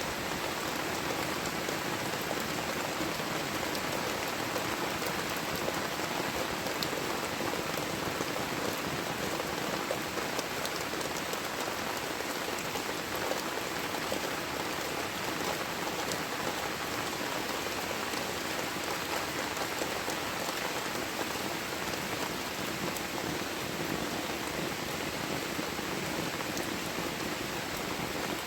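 Heavy tropical rain falling steadily, a dense even hiss with scattered sharper drop hits.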